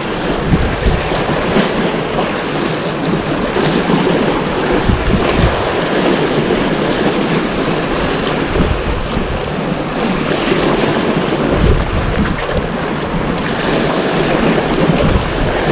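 Sea waves washing in steadily, with wind buffeting the microphone in a few low gusts.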